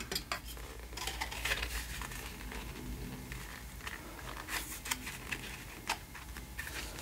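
Light handling noise as a white plastic snap-frame clamp is pressed over cross-stitch fabric onto the frame tube: the fabric rustles, and plastic clicks and taps a few times in the second half. A faint low hum runs underneath.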